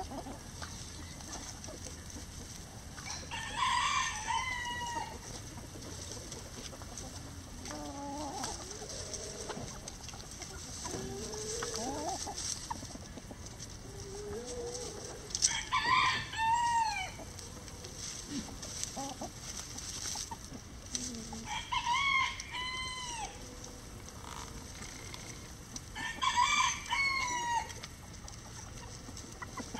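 A rooster crowing four times, each crow about a second and a half long, with softer low clucking calls from the hens in between.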